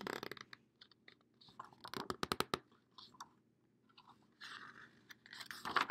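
Faint crinkling and rustling of a picture book's paper pages being handled and turned, with a quick run of crackles about two seconds in and a louder rustle near the end.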